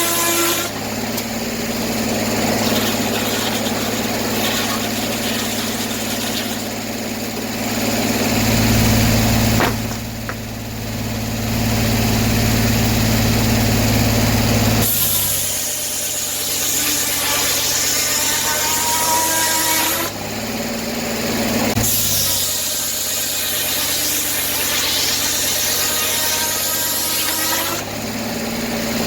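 Sawmill engine running steadily while the saw cuts through an oak log. The cutting noise rises and falls in several stretches as the load changes.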